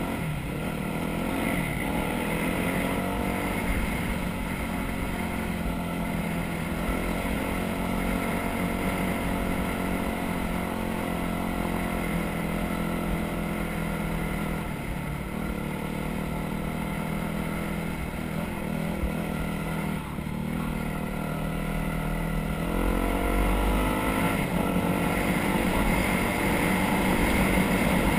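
Off-road vehicle engine running at varying throttle, its note shifting up and down, then rising and getting louder about three-quarters of the way through.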